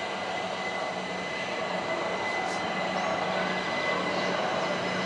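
Class 31 diesel locomotive's English Electric 12SVT engine running steadily as the train approaches, still some way off.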